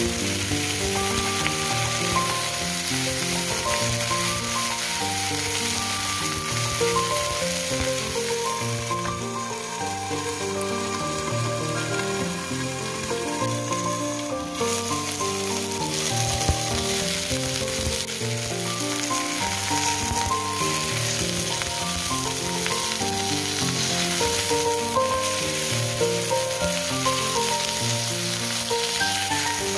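Oil sizzling steadily as three whole flower sea bream pan-fry with slices of ginger in a nonstick frying pan, browning before they are braised; the sizzle goes quieter for a few seconds in the middle. Background music plays throughout.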